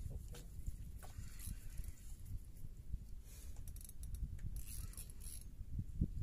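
Spinning reel being cranked under load, its gears whirring and clicking in spurts, as a bent jigging rod brings up a hooked fish. A steady low rumble runs underneath.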